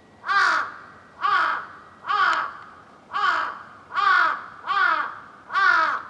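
Large-billed crow cawing: seven loud calls at about one a second, each sliding down in pitch.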